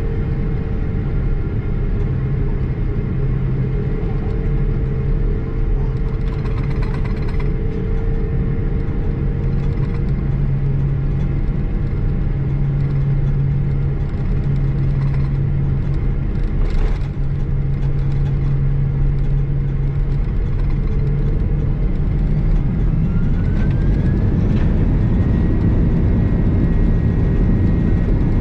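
Airbus A330-200 cabin noise on the ground: a steady low hum of the engines and air system with faint whines. About two-thirds of the way through, a whine rises in pitch and then holds as the overall sound grows a little louder, like the engines spooling up.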